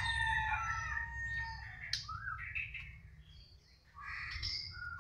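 White-rumped shama (murai batu) singing a varied run of whistled and chattering phrases, thinning out to a short pause about three seconds in before starting again.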